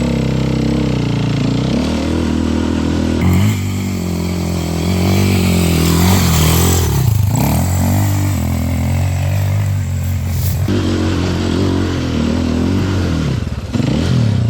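Enduro dirt bike engine revving up and down under load, its pitch rising and falling repeatedly.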